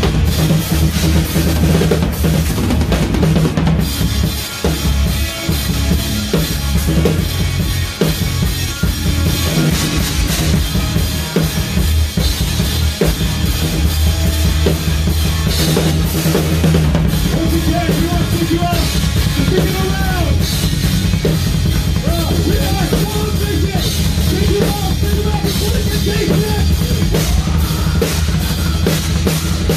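A melodic death metal band playing live, heard close to the drummer's Tama kit with T-Cymbals: dense kick drum and snare under a constant cymbal wash, over heavy distorted guitars and bass. From about halfway through, rising and falling pitched notes run over the top.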